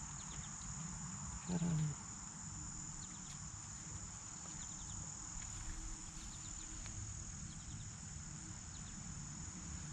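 Steady, high-pitched drone of an insect chorus that runs unbroken, with a brief murmur of a voice about a second and a half in.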